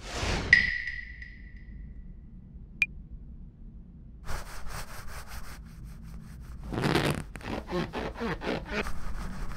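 Cartoon sound effects: a swoosh with a ringing tone that fades over about a second and a half, then a single sharp click, then scratchy rubbing and scraping noises that come in irregular strokes.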